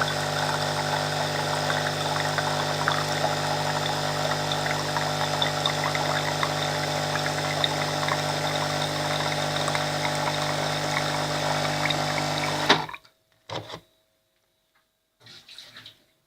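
Nescafe Dolce Gusto Oblo coffee machine's pump running steadily with a low hum while hot water pours through into a mug, flushing out vinegar after descaling. It cuts off suddenly about three seconds before the end, followed by near silence with a couple of faint short sounds.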